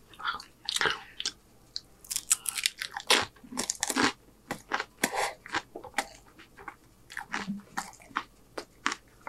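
A person crunching and chewing loaded tortilla-chip nachos, a run of short, crisp, irregular crunches.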